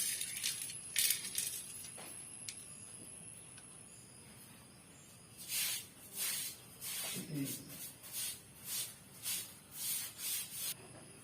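A spoon scraping as spices are scooped into a bowl. A few light clicks come first, then a run of about eight short scraping strokes, roughly two a second, in the second half.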